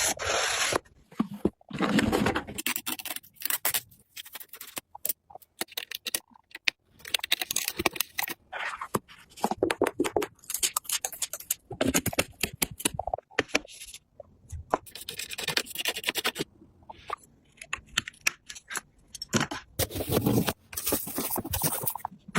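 Hands working on PC hardware: irregular scraping, rustling and sharp clicks of plastic and metal parts, in bursts with short pauses between.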